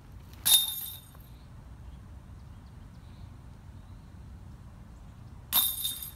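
Two discs striking a disc golf basket's chains, each a sharp metallic clash with a short jingling ring, about five seconds apart; the first is the louder.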